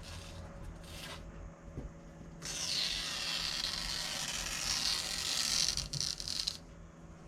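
Old cloth lining being torn away from the back of an old paper print, a dry raspy ripping. Two short rips in the first second are followed, about two and a half seconds in, by one long rip that lasts about four seconds and crackles as it ends.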